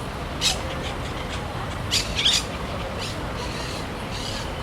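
Parrots giving short, sharp squawking calls: one about half a second in and a quick pair about two seconds in. Underneath runs a steady low city rumble.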